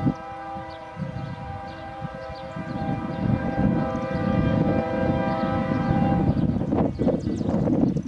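Diesel freight locomotive's multi-chime air horn sounding a long, steady blast for the grade crossing, stopping about six seconds in, over the low rumble of the approaching train, which grows louder.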